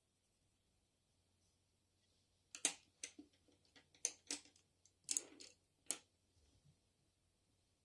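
Wooden Tombow NQ coloured pencils clicking and clattering against each other and the tabletop as one pencil is set down and another picked out of the pile: a quick run of about seven light knocks over some three seconds.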